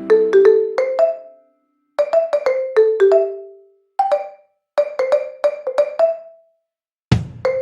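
Background music: a light melody of short struck notes in quick phrases, with brief silences between them. A low beat comes in near the end.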